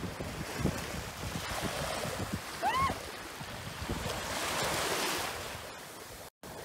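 Small waves washing in over a pebbly shoreline, with wind buffeting the microphone and a swell of surf hiss in the second half. About three seconds in, a short high-pitched call rises and falls.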